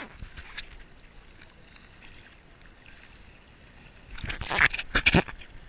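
Sea water lapping and sloshing against a camera held at the surface, with a short run of loud splashes between about four and five seconds in.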